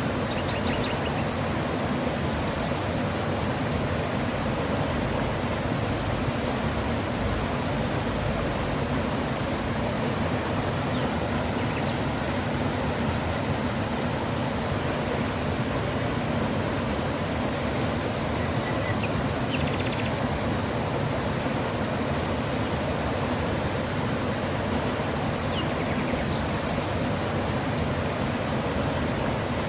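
Mountain river flowing: a steady, even rush of water. Over it an insect chirps in a fast, even pulse, and a few short high calls come through near the middle and again later.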